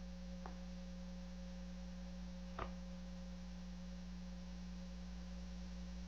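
Steady low electrical hum, with two faint clicks of a knife cutting a strawberry: one about half a second in, and a slightly louder one a little before the middle.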